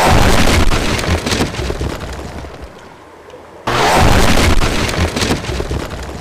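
Explosion sound effect of the ground blasting apart, heard twice about four seconds apart. Each is a sudden loud blast that dies away over about three seconds into a grainy crackle of falling debris.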